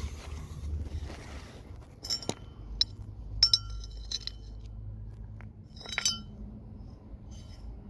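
Metal parts and tools clinking against each other, a series of sharp clinks, most between about two and four seconds in and one more near six seconds, each leaving a brief metallic ring.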